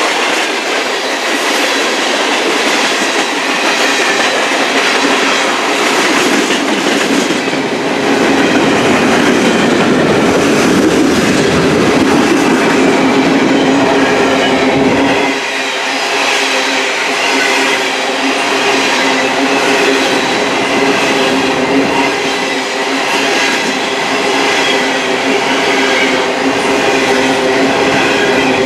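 Freight train cars rolling past, a steady loud noise of steel wheels on the rails with clicking over the rail joints. A deep low rumble swells in partway through and drops away suddenly about halfway.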